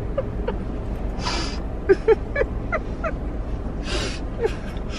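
Two women laughing in short, quick bursts of breathy notes, with two loud gasping breaths, one about a second in and one near the end, over a low steady hum.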